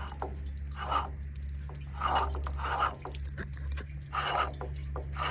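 Rebuilt water pump running with a steady low hum and irregular watery dripping and splashing. The owner takes the noise for the new ceramic seal bedding in on the cast iron face, not the impeller rubbing.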